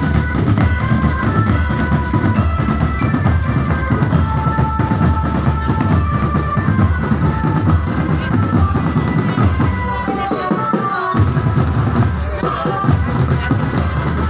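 Loud music driven by a heavy drum beat, with a melody over it. The bass drops out for about a second around ten seconds in, then the beat comes back.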